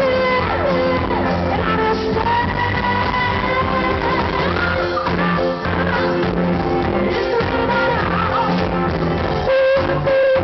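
Live pop-rock band playing with singing over it, the voice holding long sustained notes. It gets briefly louder and distorts near the end.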